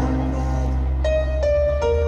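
Instrumental music with a held low bass note and, about a second in, a few bright plucked notes.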